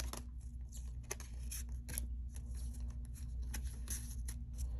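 Faint scattered clicks and rustles of a foil Pokémon booster pack and its cards being handled, over a low steady hum.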